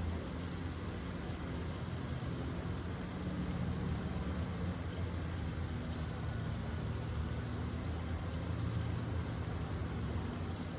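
A steady low rumble of background noise, even throughout, with no distinct events.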